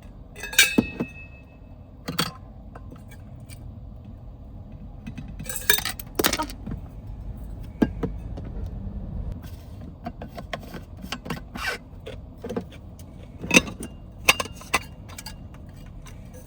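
Small objects being handled: scattered light clicks, knocks and clinks, a couple of them with a short ringing tone, over a low steady background hum.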